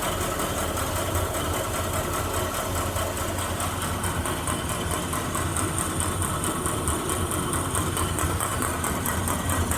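Grob 4V-36 vertical metal-cutting bandsaw running steadily, with a regular tick each time the blade's weld passes through the blade guides: a poor blade weld. The blade is straight and the guides are not worn.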